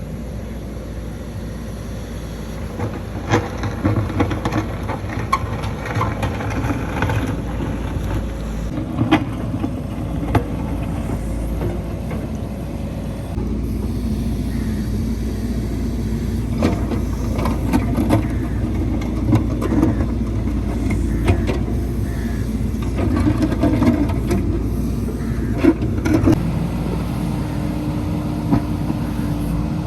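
JCB 3DX backhoe loader's diesel engine running steadily, with frequent sharp metallic clanks and knocks from the working machine.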